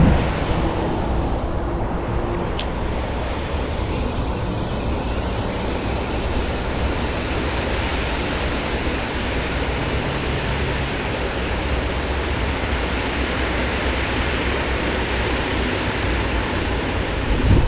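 Steady rushing noise of wind buffeting the microphone over flowing river water, with a louder gust at the start and again near the end.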